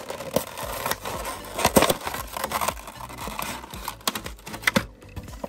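Clear plastic blister pack of a die-cast toy car crinkling and crackling as it is pulled and torn away from its cardboard backing, in irregular rustles and snaps. The sharpest snaps come about two seconds in and again near the end.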